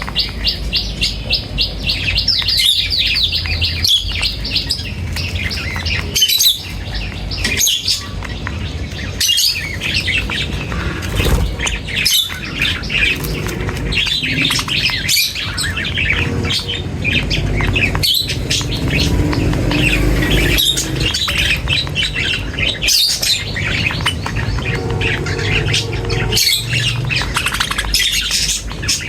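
A flock of birds chirping and calling together, many quick overlapping chirps, over a low steady rumble.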